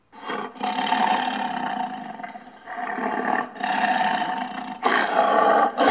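Lion roaring and growling, a run of long rough calls broken by short pauses, loud from the first moment.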